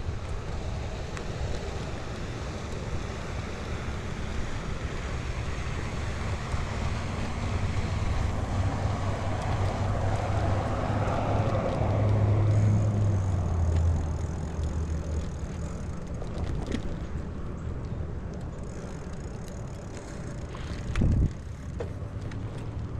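Wind rushing over a GoPro's microphone during a bicycle ride along a road, with the road noise of a passing vehicle swelling and fading about halfway through, and a short low thump near the end.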